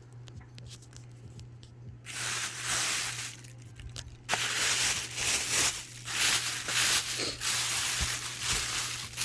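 Paper wrapping crinkling and tearing as a firework is unwrapped by hand: a short burst about two seconds in, then nearly continuous rustling from about four seconds on.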